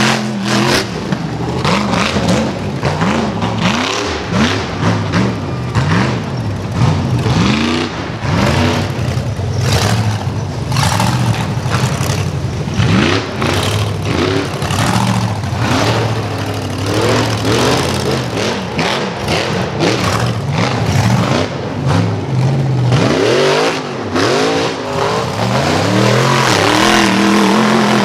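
Rock bouncer buggy's engine revving hard, its pitch rising and falling again and again as it fights up a steep dirt hill.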